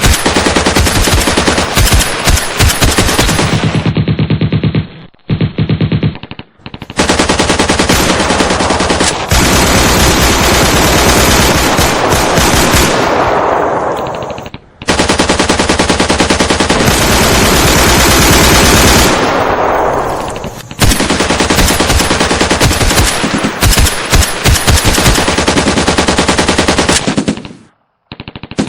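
Sound-effect firefight: long bursts of rapid automatic machine-gun fire, several seconds each, separated by brief pauses.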